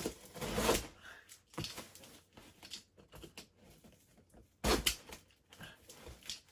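Utility knife slitting packing tape along a cardboard box, with irregular scraping and rustling of tape and cardboard. Two louder bursts of scraping come about half a second in and again about five seconds in.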